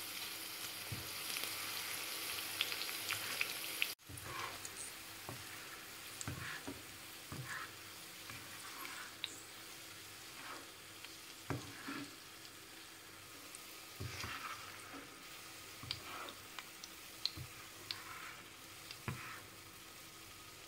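Sliced red onions frying in shallow oil in a nonstick pan, sizzling, while a slotted spoon stirs them and lifts the golden onions out of the oil, scraping and tapping against the pan. The sizzle is loud and dense for the first few seconds, then drops off suddenly about four seconds in, leaving a softer sizzle under scattered spoon knocks.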